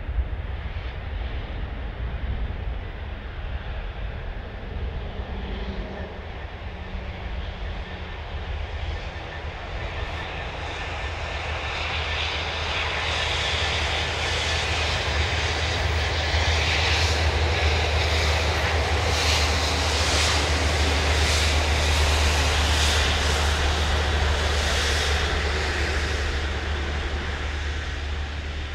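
Class 66 diesel locomotive hauling a railhead treatment train past, its two-stroke V12 engine making a steady low hum under wheel and rail noise. The train grows louder, is loudest in the second half, and eases off near the end as it moves away.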